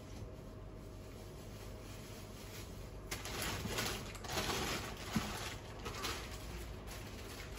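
Steady low kitchen background hum, with soft rustling and light clattering in the middle and one sharp click about five seconds in.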